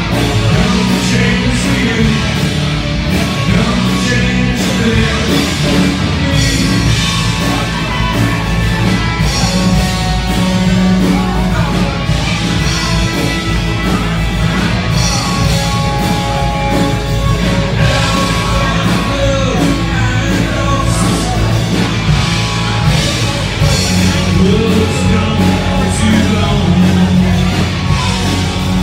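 A live rock band playing loudly, with drums and a singer, in an 80s cover-band style.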